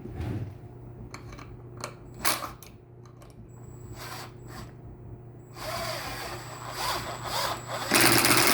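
Wooden birdhouse pieces and screws being handled, with a few light knocks and some rubbing. Near the end a cordless drill starts up loud and steady, driving a screw into soft pine.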